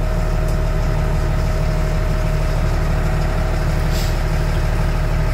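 LMTV truck's diesel engine idling steadily, heard from inside the cab, with a thin steady whine over it. It is idling to build air pressure in the tanks for the central tire inflation system.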